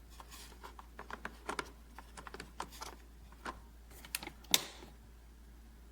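A string of irregular light clicks and taps, with one sharper knock about four and a half seconds in.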